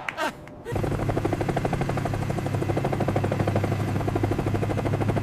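Rescue vehicle sound effect: a steady, fast-pulsing mechanical drone with a strong low hum, starting under a second in.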